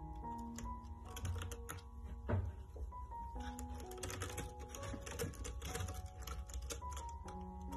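Kittens' claws scrabbling on a sisal scratching post: rapid, irregular clicking and ticking, with one louder thump about two seconds in, over background music with held notes.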